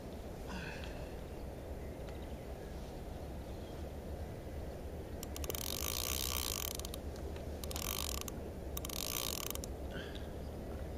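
Fishing reel's ratchet clicking fast in three bursts of rapid clicks in the second half, as the line is worked on the rod.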